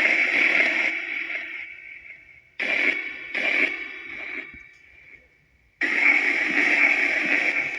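Necrophonic spirit box app playing white noise through echo and reverb: bursts of hissy, radio-like sound that cut in abruptly and fade away in long echoing tails. There are four bursts, with brief near-quiet gaps between them.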